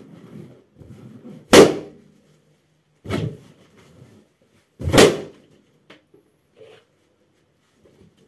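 Latex balloons popping under a stomping foot in socks: three sharp bangs about a second and a half apart, the first and last loudest. Before the first bang the stretched rubber rustles as the foot presses the balloon down.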